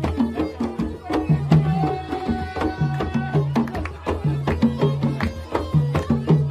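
Background music: Middle Eastern-style instrumental with hand drums keeping a steady rhythm.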